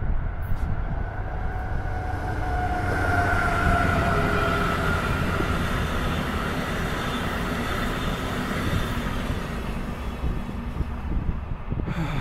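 Via Rail Siemens SCV-42 Charger diesel-electric locomotive, with its Cummins QSK95 engine, pulling a passenger train past at speed: a steady low rumble and rush of the passing train, with the locomotive's tones dropping in pitch as it goes by a few seconds in, then easing off as the coaches pass and the train moves away.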